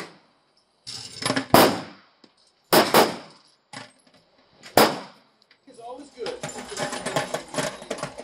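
Pistol shots on an indoor range, three sharp reports at uneven spacing of one to two seconds, each with a short echo off the range walls. From about two thirds of the way in, voices and background noise take over.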